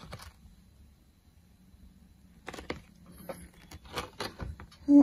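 Thin clear plastic texture sheet being handled, giving faint scattered crackles and clicks after a quiet first couple of seconds, with a short louder sound right at the end.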